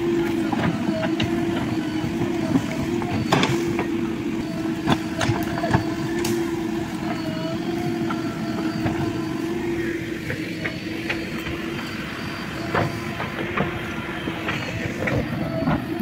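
JCB backhoe loader's diesel engine running steadily with a steady hum while the rear backhoe bucket digs into soil, with scattered clanks and knocks from the arm and bucket.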